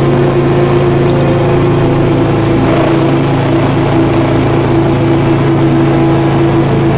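Dark ambient drone music: a steady, unbroken hum of sustained low and mid tones with no beat.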